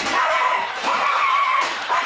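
A dog barking in a frenzy at arriving mail, with a drawn-out high yowl about a second in.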